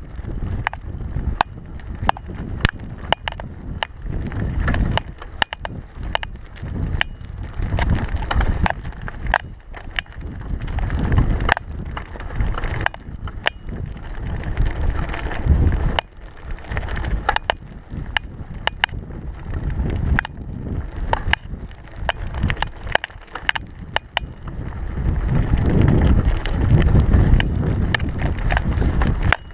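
Mountain bike riding over a dirt trail: tyres rumbling on the ground with frequent sharp clicks and rattles from the bike over the bumps, and wind rushing over the microphone, loudest near the end.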